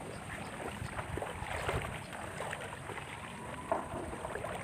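Someone wading through shallow, muddy water: quiet sloshing with small, irregular splashes.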